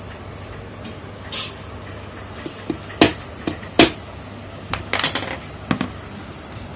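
Sharp metal clicks and knocks, about six of them at uneven intervals, the loudest about four seconds in, as the needle bar and shuttle parts of a Bharat full-shuttle sewing machine are handled and adjusted so the needle just touches the shuttle point. A steady low hum runs underneath.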